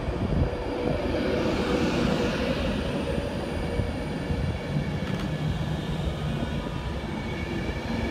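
Class 390 Pendolino electric train pulling out and rolling past close by: a steady rumble of wheels and running gear with a steady hum.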